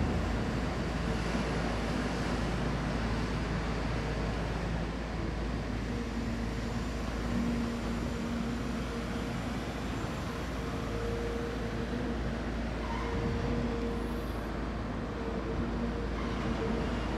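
Heavy diesel machinery running steadily: a low engine drone with a faint hum that swells and fades now and then.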